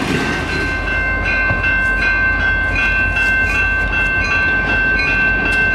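Railroad grade-crossing bell ringing, a steady run of strokes a few times a second with a lingering high ring, over the low rumble of an approaching GEXR diesel locomotive.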